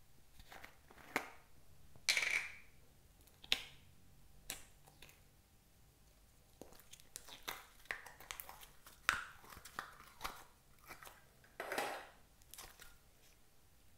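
Yellow slime being handled out of its plastic tub and pressed by hand into a glass bowl: scattered soft crackles, clicks and sticky pops, with a few louder squishes.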